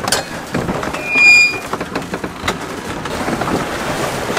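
Wind and water noise aboard a small sailboat sailing close-hauled, with a single short high beep about a second in, the loudest sound, and a few light knocks.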